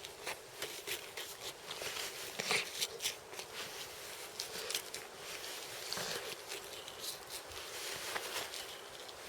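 Hunting knife working on a deer carcass: irregular soft tearing, crackling and clicking as the blade cuts through hide and flesh.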